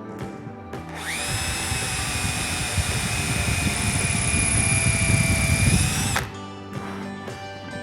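An electric power tool spins up to a steady high whine about a second in, with rough grinding noise building beneath it, then cuts off suddenly about six seconds in.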